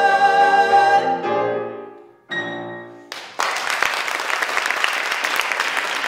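A male singer holds a final sustained note over a grand piano, releasing it about a second in. The piano sounds a closing chord that dies away, and applause breaks out about three seconds in and continues.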